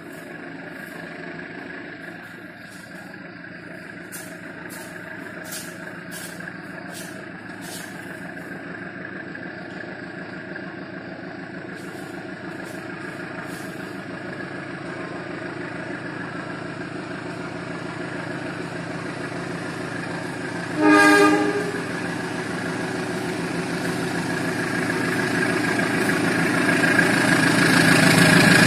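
Diesel-electric locomotive hauling passenger coaches, approaching with its engine drone growing steadily louder. It gives one short horn blast about two-thirds of the way through and sounds the horn again as it reaches the end.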